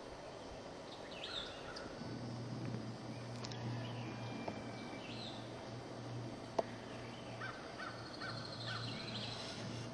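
Wild birds calling outdoors: scattered short calls and, near the end, a quick run of about four chirps, over a low steady hum. A single sharp click about two-thirds of the way through.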